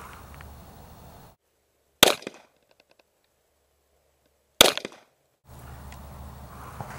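Two pistol shots, about two and a half seconds apart, each a sharp crack with a short ringing tail.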